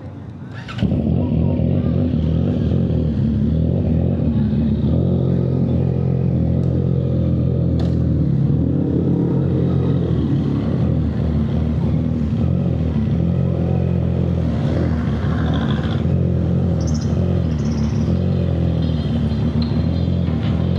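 CFMoto 675NK's three-cylinder engine running at steady revs, coming in suddenly and loudly about a second in.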